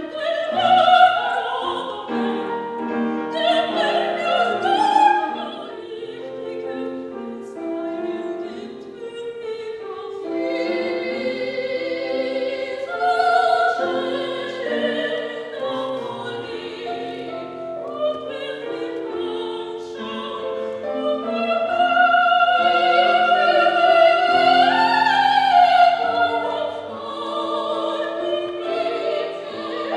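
A classically trained female voice sings an operatic piece with wide vibrato over piano accompaniment, rising to a sustained high phrase in the second half.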